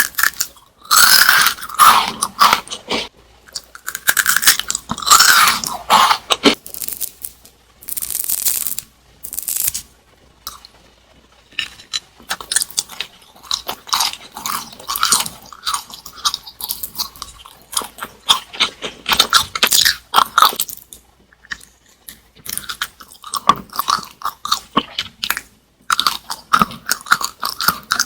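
Crunchy snacks being bitten and chewed: loud crisp crunches in the first several seconds, then runs of quick crackling chews.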